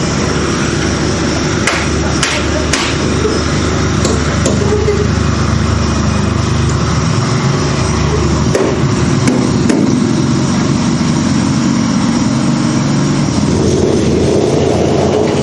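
Construction-site noise: a motor runs steadily throughout, with a few sharp knocks between about two and four and a half seconds in.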